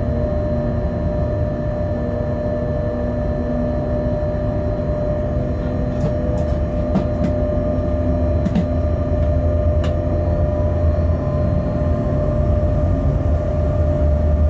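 Electric freight locomotive running, heard from inside the cab: a steady low rumble with a held electric hum. A few sharp clicks come around the middle.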